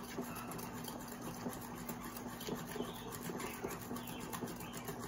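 Utensil stirring egg into cake batter in an enamel bowl: faint, irregular scraping and light taps against the bowl.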